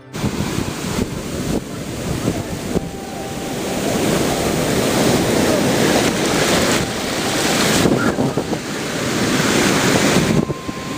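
Pacific Ocean surf washing onto the beach, with strong wind buffeting the microphone. The rushing noise swells louder over the first few seconds and eases off near the end.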